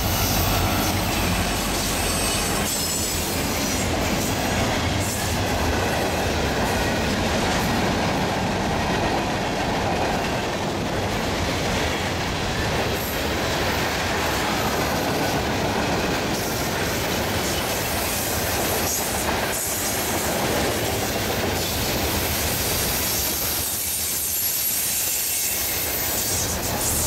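CSX freight train passing close by. The diesel locomotives' engines drone for the first couple of seconds as they go past, then a long string of tank cars rolls by with a steady rumble of wheels on rail, clicking over the rail joints with some high wheel squeal on the curve.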